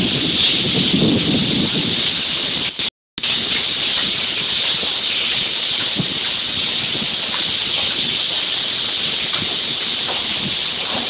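Steady loud hiss with no clear source in the picture. It cuts out briefly about three seconds in, and a few faint taps are heard over it later on.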